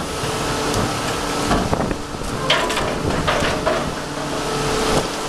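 Crab boat's engine and hydraulic pot hauler running steadily over wind and waves as the pot line is hauled in, with a few short higher-pitched sounds about halfway through.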